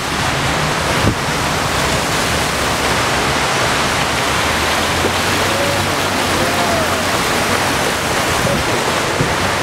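A car wading through deep floodwater: a steady rush and splash of water thrown up along its side by the tyres.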